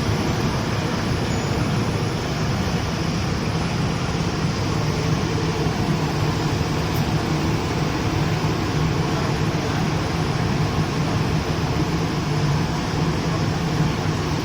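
Spiral filter tube welding machine running: a steady mechanical hum with a noisy hiss over it, unchanging throughout.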